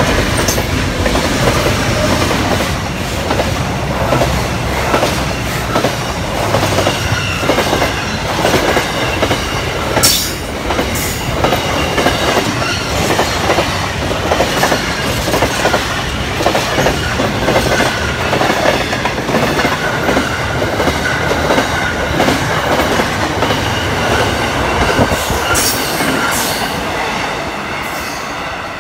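Pacific National freight train passing close: its diesel locomotives run by, then empty container flat wagons clatter over the rail joints with sharp clanks. A steady squeal from the wheels comes in over the second half, and the sound fades near the end as the tail passes.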